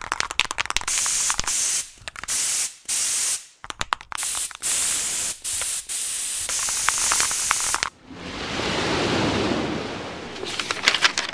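Aerosol spray-paint can hissing in a series of short and long bursts, with sharp clicks between them. About eight seconds in a softer rushing sound swells and fades, followed by a cluster of crackling clicks near the end.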